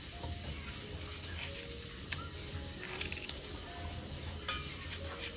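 Kitchen knife cutting pointed gourds held in the hand, a few faint clicks as the blade goes through, over a low steady hum.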